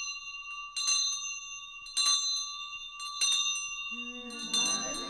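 School bell ringing, struck about once a second, each stroke ringing on into the next. A babble of voices starts near the end.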